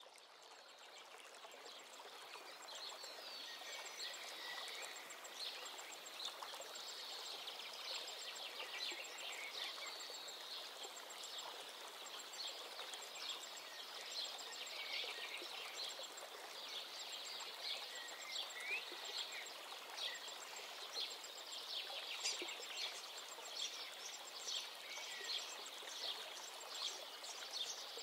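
A chorus of small birds chirping and singing over a steady hiss like running water.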